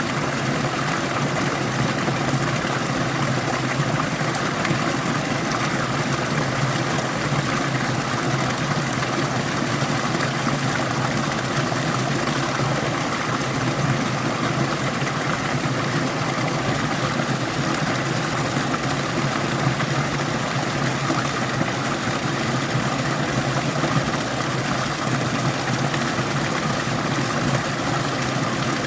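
Stream of water rushing steadily through a valley, an even, unbroken wash of noise.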